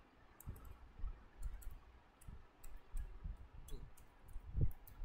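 Computer keyboard typing: irregular, scattered key clicks with a few soft low thuds.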